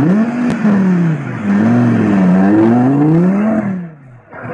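Audi R8 sports car engine revving hard as it accelerates away, its pitch climbing and falling back four times in quick succession before the throttle comes off near the end.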